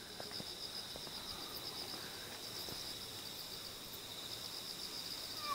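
Night insects chirring steadily in a high, fast-pulsing drone. A cat gives a short, faint meow right at the end.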